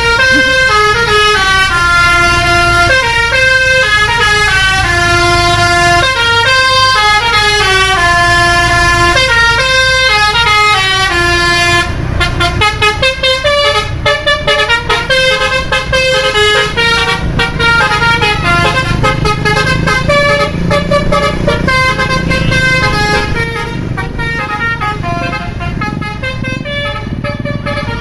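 Bus telolet horn, a Basuri V3 multi-tone horn, playing a quick melody of notes stepping up and down in pitch over the bus's engine running. About twelve seconds in, the tune goes on less clearly among a rapid clatter of clicks.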